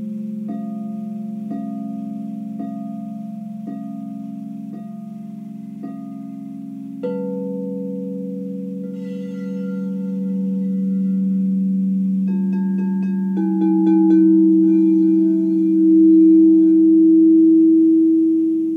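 Frosted quartz crystal singing bowls struck with a mallet, about once a second at first, then harder about seven seconds in. Several bowls ring on together in a layered, sustained hum, and one tone swells louder near the end.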